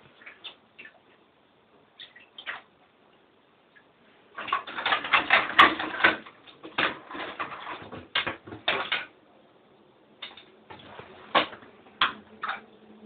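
A pet mink at play with toys in water: a few isolated knocks, then a dense flurry of knocking and splashing from about four to nine seconds in, then scattered single knocks.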